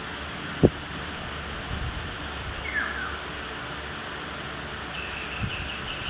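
Outdoor ambience with a steady hiss. A short falling bird chirp comes about three seconds in, and a steady pulsing insect-like trill starts near the end. A sharp low thump sounds just over half a second in, and a softer one near the end.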